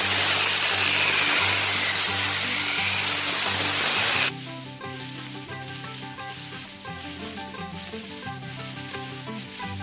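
Variable-speed angle grinder with a concrete polishing pad wet-sanding a concrete countertop: a steady hiss and whir of the spinning pad on wet concrete. About four seconds in the sound drops suddenly to a much quieter hiss, which carries on.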